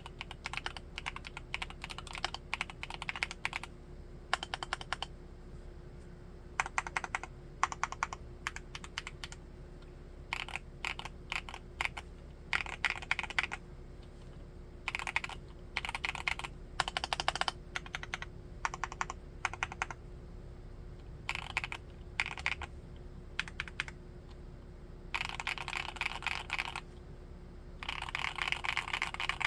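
Typing on a Createkeebs Luminkey75 mechanical keyboard fitted with Gateron Baby Raccoon linear switches. Runs of quick keystrokes alternate with short pauses, and the densest flurries come near the end.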